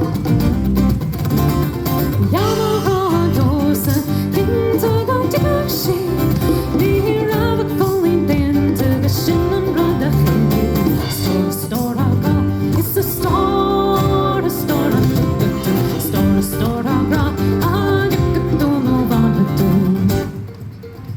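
Live Celtic folk band playing, with acoustic guitar strumming under a gliding melodic lead line. The music drops away about twenty seconds in.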